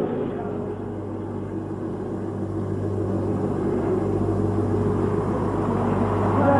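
Road traffic: a steady low vehicle rumble that grows gradually louder as the traffic approaches.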